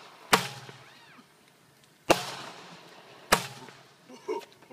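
Firecrackers going off: three sharp bangs about a second or more apart, each dying away quickly.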